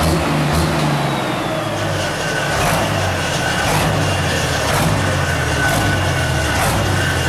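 Pulling tractor's engine running steadily at low speed as the tractor rolls slowly forward on its first test drive, with a faint whine above it and a sharp tick about once a second.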